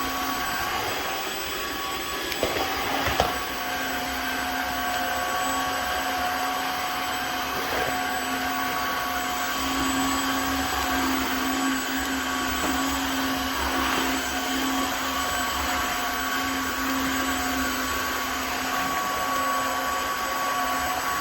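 Tineco Floor ONE S5 cordless wet-dry vacuum mop running steadily: a motor hum with a high whine over a rushing of air, with a couple of short knocks about three seconds in.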